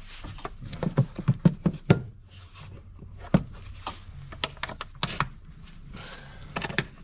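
Plastic engine air filter housing cover being worked back into place by hand: an irregular run of hard plastic clicks and knocks, thickest about a second in and again around four to five seconds in.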